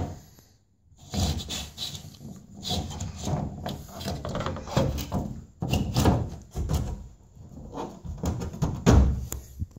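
Irregular rubbing, knocks and short creaks of a plastic louver panel being handled and pushed into place against the car.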